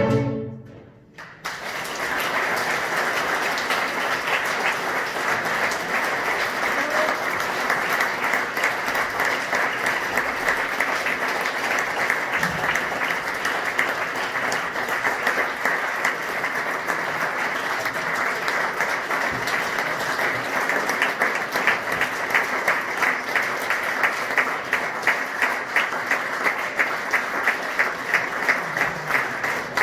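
A string orchestra's last chord dies away in the first second, and a concert audience applauds. About twenty seconds in, the applause falls into rhythmic clapping in unison, about two claps a second.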